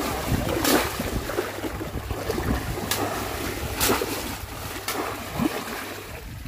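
Shallow floodwater splashing and churning as a man wades through it and slams a bamboo polo basket trap down, with several sharp splashes about a second apart.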